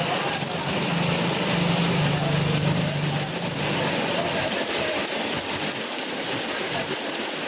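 Heavy rain driven by gale-force wind: a loud, steady hiss. A low hum comes in about a second in and fades a little after three seconds.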